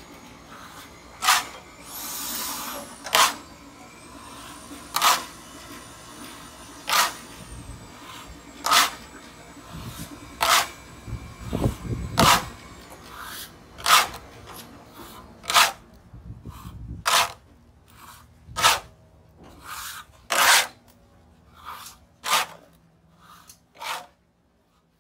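Steel hand trowel swept across wet stucco in repeated strokes, a short scrape roughly every two seconds, as a slight texture finish is worked into the wall.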